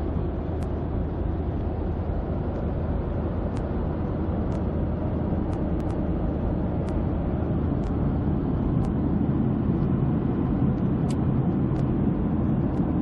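Steady cabin noise of a jet airliner in flight: an even, low rush of engine and airflow, with a few faint ticks scattered through it.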